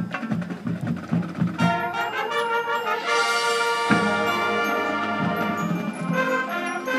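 Marching band playing: quick repeated low notes for the first second and a half, then the brass comes in with loud sustained chords, with a sharp accented hit about four seconds in.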